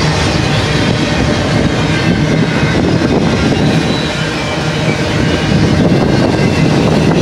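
A BNSF double-stack intermodal train's loaded well cars rolling past close by: a loud, steady rumble and roar of steel wheels on rail.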